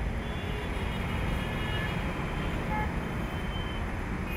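Steady city road-traffic rumble, with faint short horn toots now and then.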